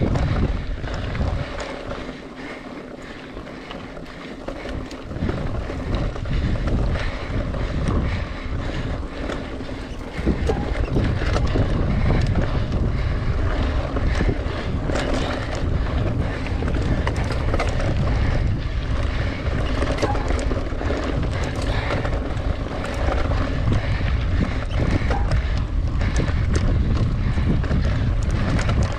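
Wind buffeting the microphone of a camera on a moving mountain bike, mixed with rattles and knocks from riding a rough trail. The wind eases a couple of seconds in, then comes back stronger about ten seconds in and holds.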